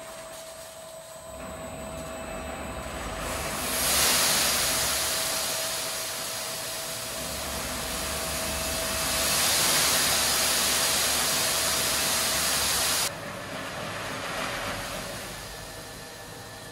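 Automatic bag emptying machine running: a steady rushing hiss with a faint high whine. The hiss swells louder twice and cuts off abruptly about thirteen seconds in.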